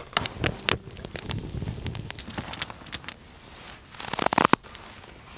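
Small tinder fire crackling with sharp, irregular pops. About four seconds in comes a short, louder run of crunching crackles, then it goes quieter.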